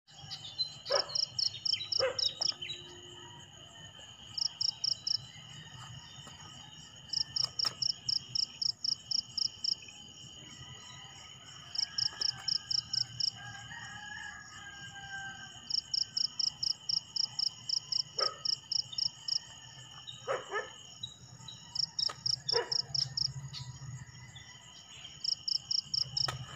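Night insects: a steady high trill, with bursts of rapid chirping pulses, about ten a second, that come every few seconds and last a second or two each.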